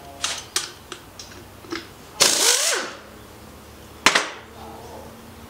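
Pneumatic tool on an air hose: a short, loud burst of hissing air with a whine that rises and falls, amid light metal clicks of tools and one sharp metal clank about four seconds in.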